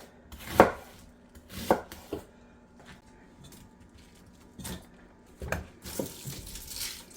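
Knife chopping green cabbage: about seven separate sharp cuts, a second or so apart, with a quiet gap of about two seconds in the middle.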